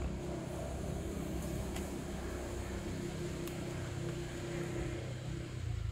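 Steady low mechanical hum and rumble, with a faint held tone that stops about five seconds in.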